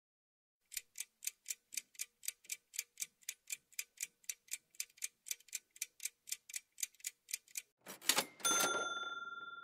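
Quiz countdown-timer sound effect: a clock ticking steadily about four times a second for some seven seconds, then a short whoosh and a single bell-like ding that rings on and fades, marking the time being up.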